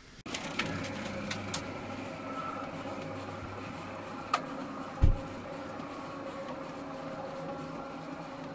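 Steady low mechanical hum, with a few sharp clicks in the first couple of seconds and one heavy low thump about five seconds in, the loudest sound.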